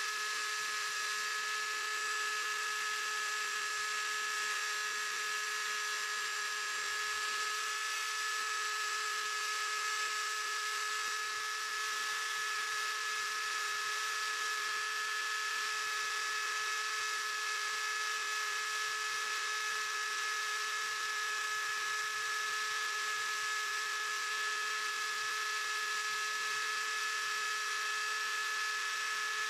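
Small CNC machine running with a steady high-pitched whine over a hiss, holding the same pitch throughout.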